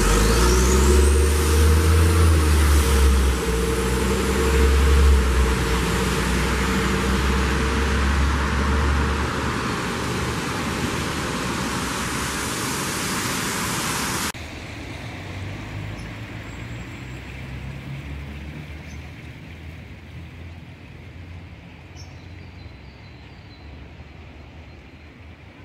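City street traffic: a vehicle's engine running close by for the first several seconds over loud tyre hiss on a wet road. The noise cuts off suddenly about halfway through, leaving quieter distant traffic.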